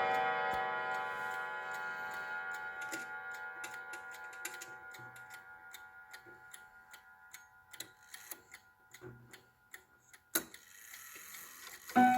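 Chime notes of a Howard Miller three-chime clock ringing on and slowly fading, with the clock's ticking coming through as they die away. A sharp click sounds about ten seconds in, and the next chime sequence starts right at the end.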